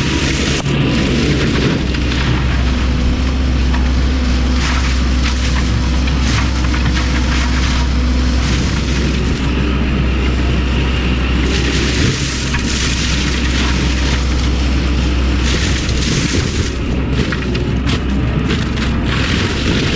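Fecon Bullhog forestry mulching head on a Cat 308 excavator running under load, chewing through brush and wood. A loud, steady, deep drone of the excavator's diesel and spinning rotor, with irregular crunches and cracks as material is hit.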